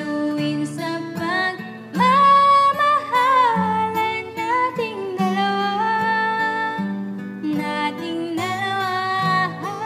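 A woman singing a slow song over instrumental backing music, holding long notes, and singing out loudest about two seconds in.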